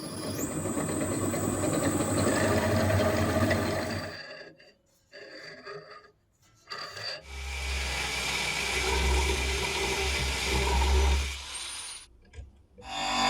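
Electric drill press running in two spells, a steady hum with noise over it. It stops about four seconds in, and a few short clicks follow. It runs again from about seven seconds and stops near the end.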